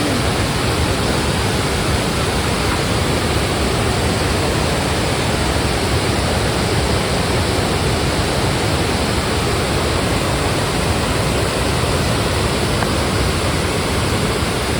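Steady rush of falling water from a waterfall, an even, constant noise.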